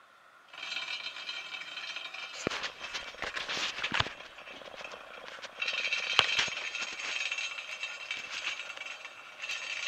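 Harley-Davidson rear spoked wheel spun by hand on its stand, with a dial-gauge tip on the alloy rim: a steady metallic rattle that starts about half a second in, with a few sharp knocks a few seconds in and again around six seconds in.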